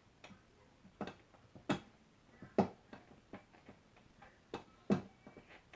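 Faint, irregular light clicks and knocks, about a dozen, spaced unevenly, with the loudest a little after two and a half seconds and near five seconds.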